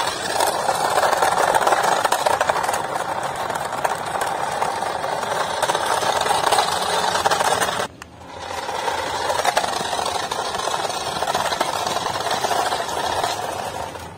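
Remote-control toy car's small electric motor and plastic gears whirring with a rattle as it is driven, stopping for a moment about eight seconds in, then running again until it cuts off near the end.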